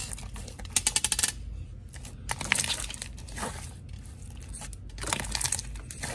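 Bead-filled slime being stretched, folded and squeezed by hand, giving several runs of rapid popping clicks with quieter squishing between.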